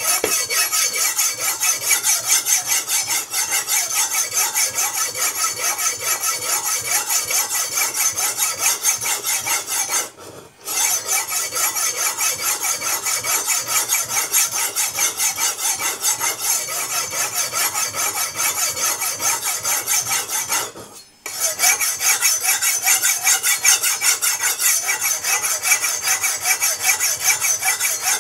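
Ikea Slitbar VG10 kitchen knife drawn in quick, even strokes down the ceramic rods of a Spyderco TriAngle Sharpmaker: steel scraping on ceramic during fine sharpening, with two short pauses, about ten and twenty-one seconds in.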